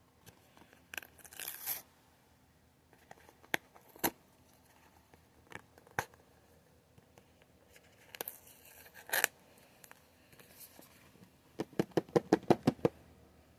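Hands working at the cardboard box of Apple AirPods Pro, scraping and tearing at its pull-tab seal strips, with a few sharp clicks. Near the end comes a quick run of about ten taps.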